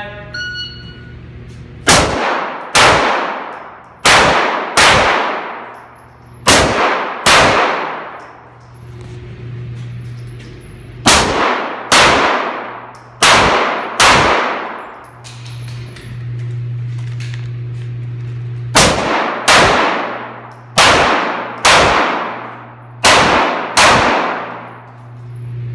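Pistol fired in pairs of quick shots inside an indoor range: sixteen shots in eight pairs, the two shots of each pair under a second apart. Each shot rings out with a long echo off the range walls, and a steady low hum runs underneath.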